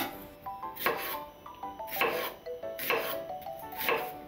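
Kitchen knife cutting an onion on a bamboo cutting board, one slow stroke about every second, over soft background music.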